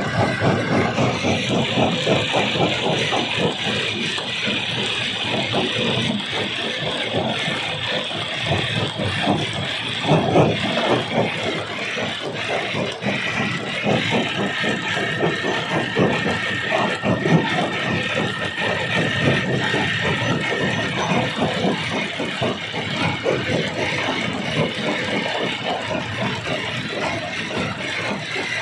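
Rock crusher machine crushing stone: a continuous dense clatter of knocks and cracks over a running machine. A thin steady high tone comes in for several seconds midway.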